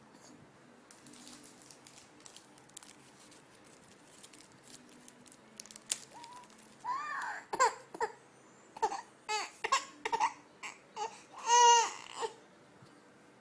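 Baby fussing in a string of short whimpering cries from about halfway through, building to one louder, longer cry near the end. Faint clicks and rustling come before the crying.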